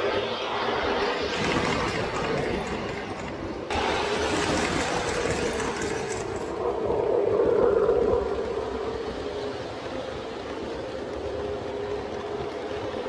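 O scale model train running on the layout: a steady motor hum over the rumble and hiss of wheels on the track, swelling for a moment about halfway through.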